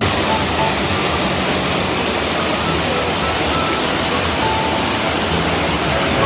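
Mountain stream water rushing, a loud steady hiss that does not let up.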